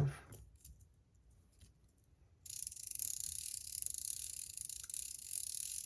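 Metal Toys Top C metal clicker fidget clicked rapidly: a dense, even run of fast metallic clicks starting about two and a half seconds in.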